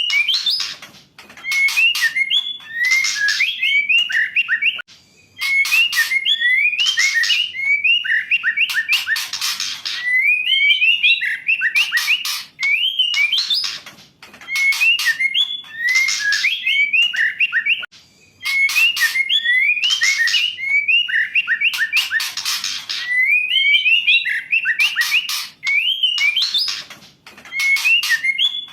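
Female white-rumped shama calling: short repeated phrases of quick rising and falling whistles mixed with harsh rasping notes and clicks, one phrase about every two seconds.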